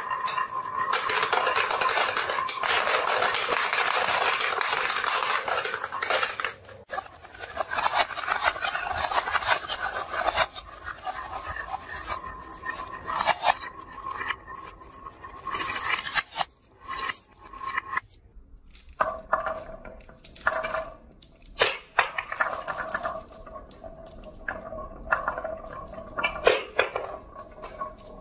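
Marbles rolling and clattering down a marble run. There is a dense continuous rattle of many marbles for the first few seconds, then scattered clicks and short rattles as fewer marbles run.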